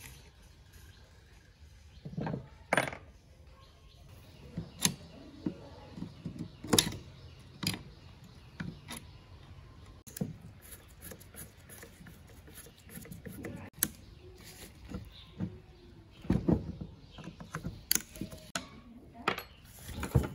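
Irregular metal clinks, taps and scrapes as a screwdriver works at an electric planer's metal motor housing and handle during disassembly, with a few louder knocks.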